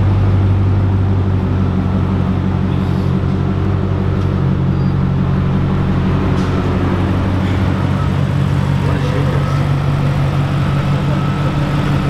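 Audi RS5's V8 engine idling steadily through a nasty-sounding exhaust.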